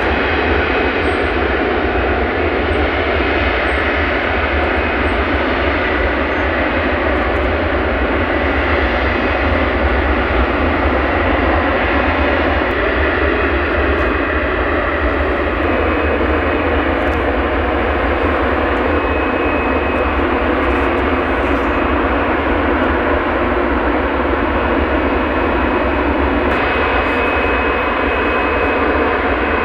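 Jet airliner engines running, a loud steady rush with a faint high whine.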